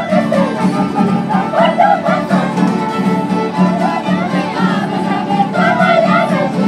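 Andean festival dance music, a fiddle carrying the melody over a steady pulsing beat.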